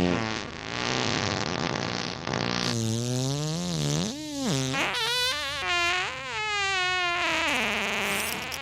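Cartoon fart sound effects: a hissing blast, then a string of long buzzy farts that swoop up and down in pitch.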